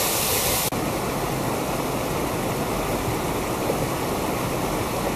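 Steady rush of water from a small forest waterfall and stream. Under a second in, the sound shifts abruptly to a duller rush with less hiss.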